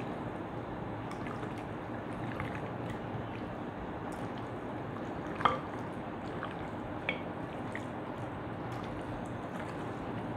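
A hand squishing and kneading raw beef in oil and spice paste in a glass bowl: soft, wet squelching with scattered light ticks, and two sharper clicks a little under two seconds apart about halfway through.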